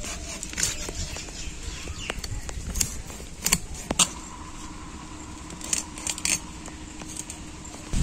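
A blade scraping the scales off a whole tilapia: a run of short, sharp, scratchy strokes at an uneven pace that thin out after about six seconds.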